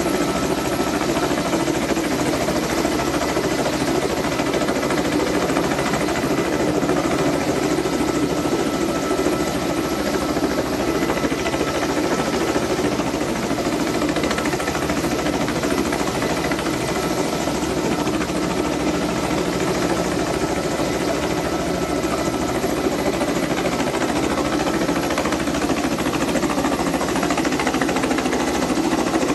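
Kamov Ka-32A11BC coaxial-rotor helicopter hovering, its rotors and twin turboshaft engines running steadily, with a faint constant whine.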